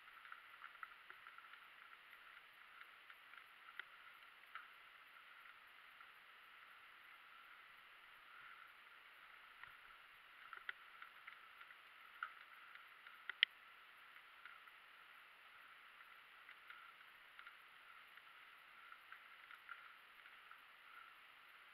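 Near silence: a faint, muffled steady hiss with scattered light clicks and knocks, and one sharper knock about 13 seconds in.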